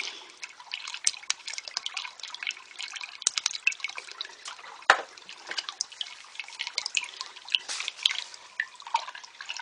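Water pouring into a basement floor drain pipe from a side pipe, trickling and splashing with many small irregular drips, as a hand works in the flow inside the drain. The water is groundwater from the foundation drainage tiles running into the sewer drain during heavy rain. One sharp knock comes about five seconds in.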